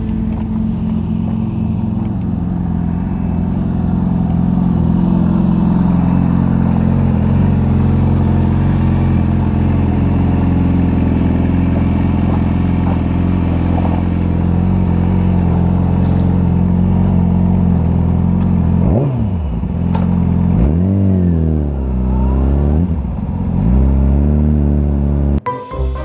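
Yamaha R6 sport bike's inline-four engine idling steadily, then pulling away, the revs rising and falling several times through the gears. Music cuts in near the end.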